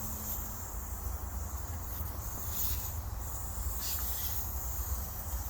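Steady high chirring of crickets over a low rumble, with a couple of brief faint hisses of air from a tire valve core as it is unscrewed, about two and a half and four seconds in.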